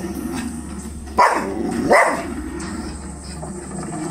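Boxer dog barking twice, two sharp barks less than a second apart, at lions on a television screen.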